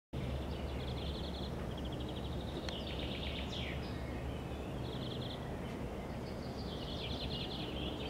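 Small songbirds singing in bursts of fast, rapidly repeated high trills, over a steady low background rumble.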